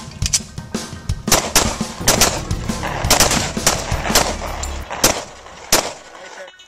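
Two semi-automatic pistols firing at the same time, a rapid, overlapping string of about twenty shots that stops near the end.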